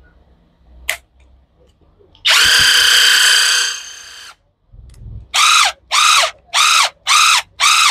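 Bosch GDS 250 LI 18 V cordless impact wrench test-run with no load after its brushed DC motor was replaced. After a click, it whirs for about a second and a half and winds down. Then comes a series of five short trigger bursts, each spinning up and dropping away.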